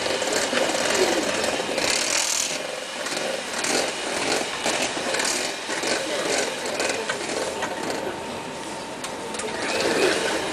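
Electric mixer running at low speed, beating sugar into eggs in a bowl, its beaters scraping and rattling against the bowl.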